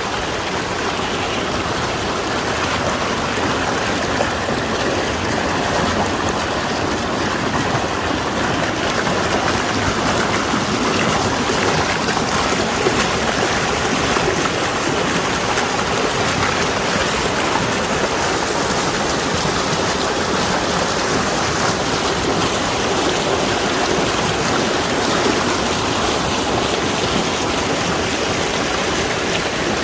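Mountain valley stream running with a steady, even rush of water.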